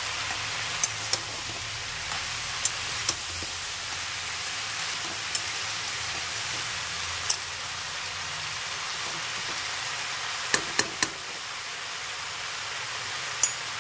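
Vegetables sizzling as they fry in a kadai, a steady hiss, with a metal spatula clicking against the pan about ten times as they are stirred.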